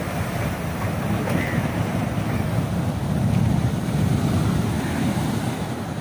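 Storm waves breaking and washing over a rock seawall in a rough monsoon sea surge: a steady rushing surf that swells about three seconds in, with wind on the microphone.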